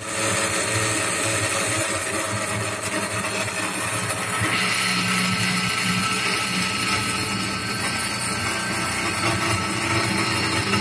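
Homemade milling spindle driven by a brushless outrunner motor, running steadily with a bit cutting into plexiglass. Its tone changes about four and a half seconds in.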